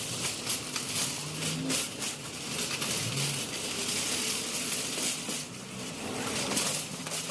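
Background noise of a busy indoor market: frequent clicks, clatter and rustling over faint voices in the distance.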